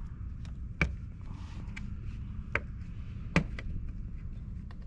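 A few light clicks and taps, the sharpest about a second in and again near two and a half and three and a half seconds, from hands and dental floss working around the plastic front H emblem and its bezel. A steady low rumble lies underneath.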